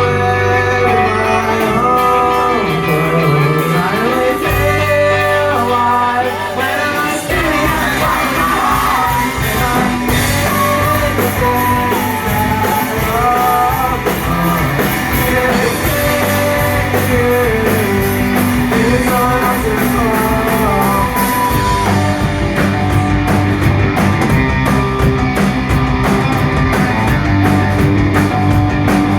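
Rock band playing live, with a singer over guitar and bass; about seven seconds in the full band with drums kicks in and the sound thickens.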